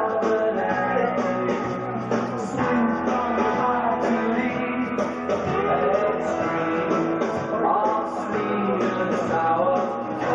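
Rock song with a singing voice and guitar, over a steady beat.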